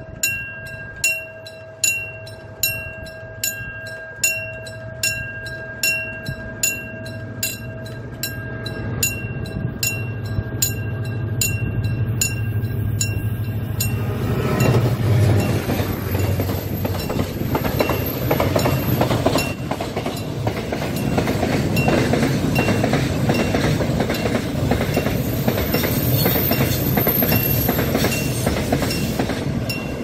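A level-crossing warning bell rings at a steady pace of about one and a third strikes a second as a freight train's locomotive rumbles up. About fourteen seconds in, the locomotive passes and a long string of container wagons follows, wheels rumbling and clattering over the rails, loud enough to bury the bell.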